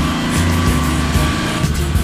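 Background music with a steady low bass line and sustained notes.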